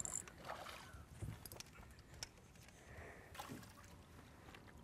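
Faint splashing and dripping of water as a landing net holding a black bream is lifted out of the water, with a few small clicks and knocks.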